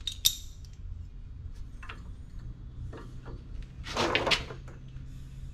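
Metal-on-metal clicks, knocks and scraping as a spring-steel caliper retaining clip is worked by hand against a heavy truck's disc-brake caliper. A sharp click just after the start, a few light knocks, and a longer scraping rattle about four seconds in.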